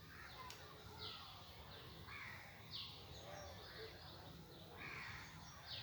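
Faint bird calls: a series of short, separate calls about a second apart over low background hiss.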